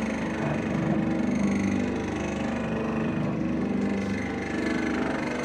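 Electric paddle powder mixer running steadily, its motor humming as the agitator churns dry detergent powder in the steel trough.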